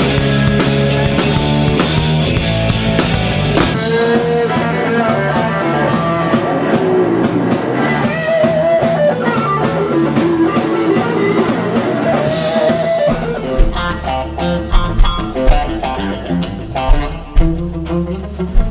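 Blues-rock band playing loud: an electric guitar plays lead lines with bent notes over bass and drums. About 13 s in the band thins out into a sparser section punctuated by heavy, accented low hits.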